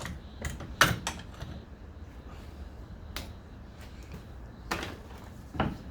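Scattered sharp clicks and knocks, about seven in all, of small engine parts and tools being handled on a workbench while a two-stroke trimmer engine is taken apart, over a low steady hum.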